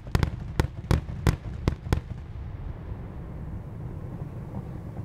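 Fireworks going off in a quick run of about eight sharp bangs over the first two seconds, followed by a low steady rumble.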